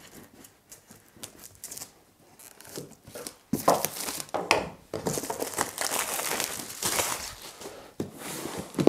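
Clear plastic wrap being pulled and torn off a cardboard box, crinkling. It is quiet for the first three seconds or so, then the crinkling and tearing come in a run of sharp bursts until near the end.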